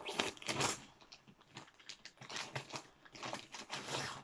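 Clear plastic garment bag crinkling and rustling in irregular bursts as it is handled and opened.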